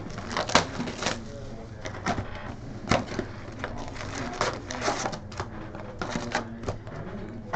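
Trading card box and packs being torn open and handled: irregular crinkles, rips and taps of cardboard and plastic wrap.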